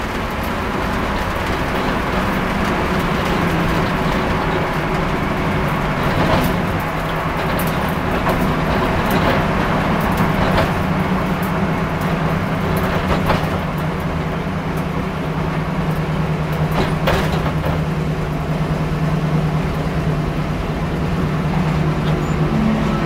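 Stock car's V8 engine heard from inside the cabin, running at low, steady revs as the car travels slowly, with a few sharp clicks and rattles from the car.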